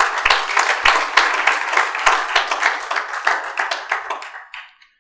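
Audience applauding in a room, the clapping dying away about four and a half seconds in.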